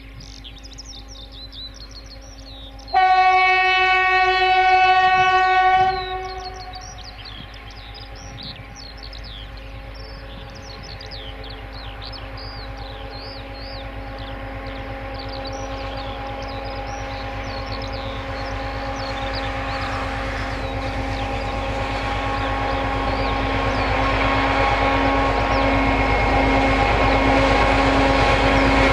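A diesel locomotive's horn gives one long, single-tone blast of about three seconds. After it, the locomotive's engine and the wagons of its loaded freight train grow steadily louder as the train approaches. Birds chirp through the first half.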